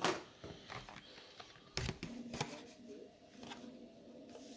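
A few faint clicks and knocks, the loudest right at the start and two more about two seconds in, over a low steady hum in a small room.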